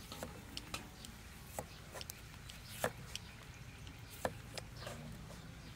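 Chef's knife slicing green tomatoes on a wooden chopping board, the blade knocking on the wood in uneven single cuts, with two louder knocks about three and four seconds in.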